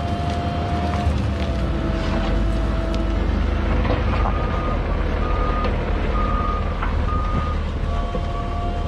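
Diesel construction machinery running steadily with a steady hydraulic whine. Through the middle a reversing alarm beeps at a little under one beep a second, with a few scattered knocks of the machine working stone.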